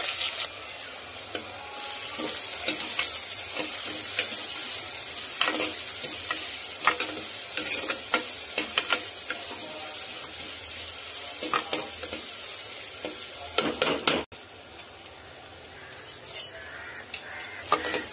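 Chopped onions, green chillies and curry leaves sizzling in hot oil in an earthenware clay pot, stirred with a spatula that scrapes and clicks against the pot. The sizzle breaks off suddenly about fourteen seconds in and comes back quieter.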